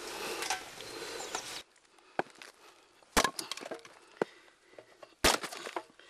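A small hatchet chopping and splitting pieces of lacquer-tree wood: four sharp woody strikes about a second apart, the second and fourth loudest, with small splintering cracks between them. Before the first strike, a steady hiss that cuts off suddenly.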